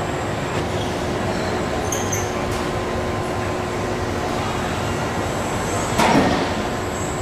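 Car body-shop production line machinery running steadily: a continuous rumble of conveyors and robots with faint high squeals. A sudden loud knock comes about six seconds in.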